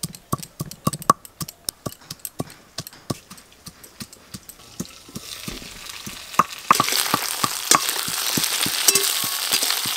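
A stone pestle knocking as it crushes ginger and garlic on a stone grinding slab, a quick irregular string of knocks. About two-thirds in, a loud sizzle of potato and brinjal pieces frying in oil in a metal wok takes over, with a metal spatula clicking and scraping as they are stirred.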